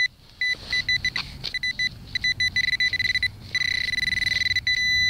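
Garrett Pro-Pointer pinpointer beeping in the hole: short, high, single-pitched beeps that come faster and faster, then merge into a steady tone as it closes on a metal target.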